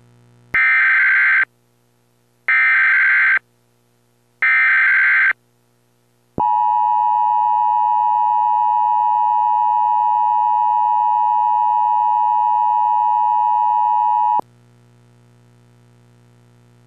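Emergency Alert System header: three short bursts of screeching SAME digital data about two seconds apart, then the steady two-tone EAS attention signal held for about eight seconds before cutting off sharply, leaving a faint low hum.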